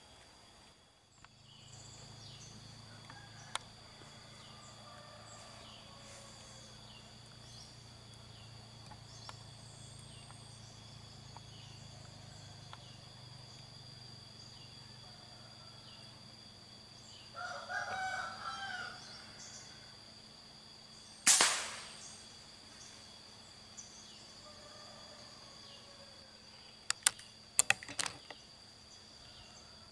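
Steady high insect drone; a rooster crows once, and a few seconds later a single loud, sharp crack rings out, a shot from a scoped air rifle. Near the end comes a quick run of sharp clicks.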